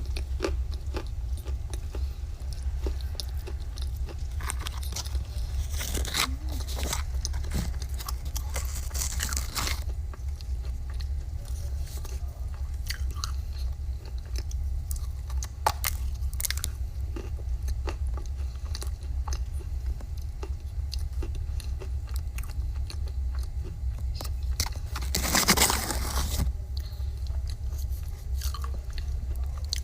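Close-miked biting and chewing of dry edible clay, a run of small crunches and crackles, with louder crunching around six to ten seconds in and again near the end, over a steady low hum.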